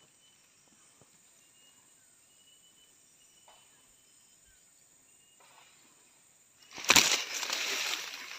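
Leaves and fronds rustling loudly close to the microphone, starting about seven seconds in. Before that it is nearly silent apart from a few faint, thin high calls.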